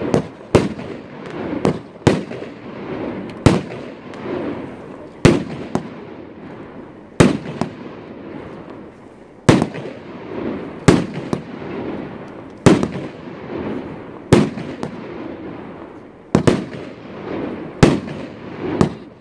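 Consumer fireworks cake firing shot after shot: about a dozen sharp bangs spaced one to two seconds apart, with a rough noise trailing between them.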